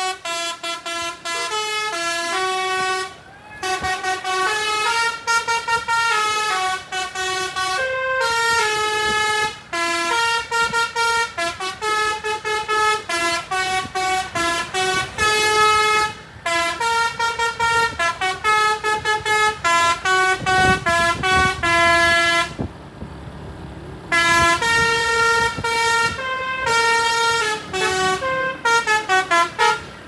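Manual basuri telolet horn of an MSM Grand Pegasus bus, played from a pianika keyboard: a running melody of quick horn notes stepping up and down in pitch. It breaks briefly about three seconds in and again a little after twenty seconds, with a low engine rumble around the second break and a fast run of notes near the end.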